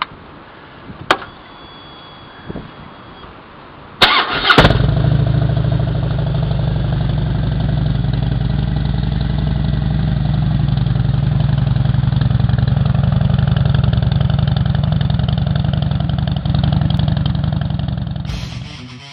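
Harley-Davidson Fat Bob's Twin Cam 96 V-twin cranked on the starter about four seconds in, catching almost at once and settling into a steady idle. The idle fades out near the end.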